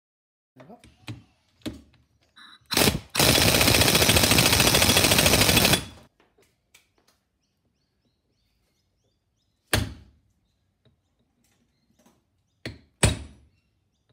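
Light clicks of small metal parts, then a loud, even rushing noise for about three seconds. Later a hammer strikes a steel drift held on the transfer case's rear output shaft: one sharp blow, then two in quick succession near the end.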